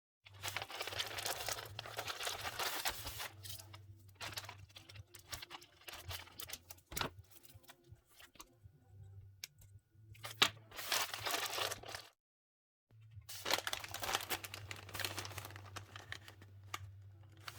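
Paper rustling and crinkling as it is handled, in several spells, with light taps and clicks in between.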